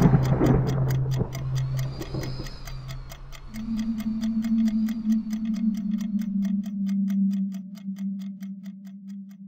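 Clock ticking, about four ticks a second, over a low steady drone that steps up in pitch about three and a half seconds in. A noisy swell at the start fades away over the first two seconds.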